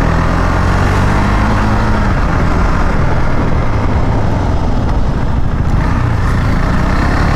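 KTM Duke 390's single-cylinder engine running at low road speed under steady wind rush on a helmet-mounted camera, the engine note dropping a little about two seconds in as the bike slows.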